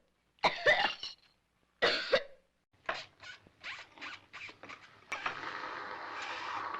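A person coughing twice, followed by a run of short clicks and knocks, then a steady hiss from about five seconds in.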